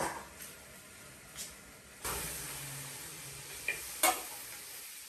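Food frying in a wok: quiet at first under its lid, then about two seconds in the sizzle jumps up as the wok is uncovered. Metal tongs working the food, with a sharp clink against the metal about four seconds in.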